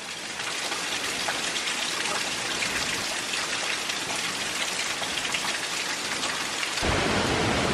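Heavy hurricane rain falling steadily, a dense hiss of rain. Near the end the sound turns abruptly louder and deeper.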